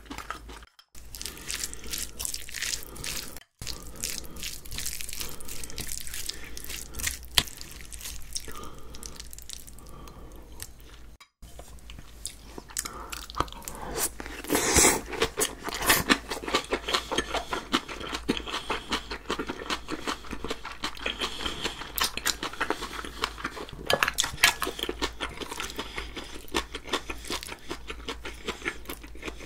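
Close-miked eating sounds: a wooden spoon scraping and clinking against glass and ceramic bowls while bibimbap is mixed and scooped, and wet chewing of mouthfuls of sea squirt bibimbap. The clicks and clatter run densely, broken by three very short silent gaps.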